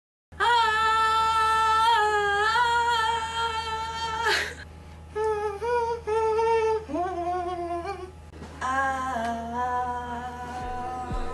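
A voice humming or singing long, held wordless notes in three phrases with short breaks between them, over a steady low hum.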